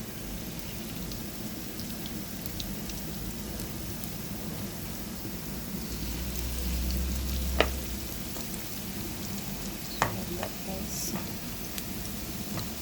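Zucchini and minced-meat patties sizzling steadily in hot oil in a frying pan, with a light crackle throughout. Two sharp clicks stand out, one past the middle and one a few seconds later.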